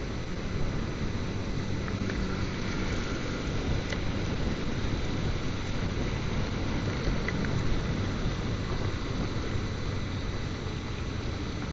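Steady rumbling rush of motorcycle riding noise: wind buffeting the rider's microphone over the engine and tyre noise on a rain-wet road.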